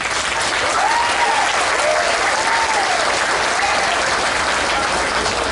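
A crowd applauding with steady hand clapping, and a few rising-and-falling calls over it between about one and four seconds in.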